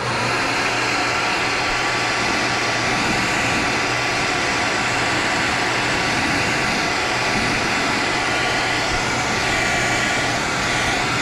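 Handheld hair dryer switched on at the start and blowing steadily, drying wet airbrush paint on a lure.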